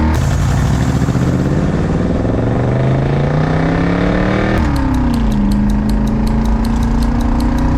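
1982 Chevrolet C10 pickup engine accelerating hard through its new mufflers on a 0-60 run. The engine climbs steadily in pitch, drops about four and a half seconds in, then holds nearly steady.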